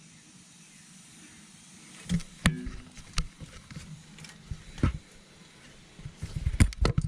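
Ratchet and 18 mm socket on a differential fill plug: scattered sharp metal clicks and knocks, with a quick run of them near the end as the plug is worked loose.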